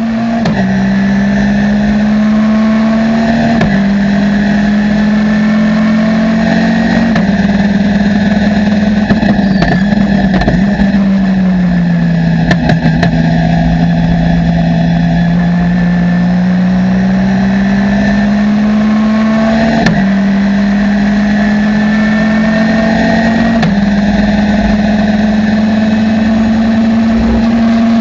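Ginetta G40 race car's four-cylinder engine heard from inside the cockpit, running hard near the top of the rev range. Its pitch holds mostly steady, with short drops at each gear change. In the middle it falls for several seconds and slowly climbs back as the car slows for a corner and accelerates again.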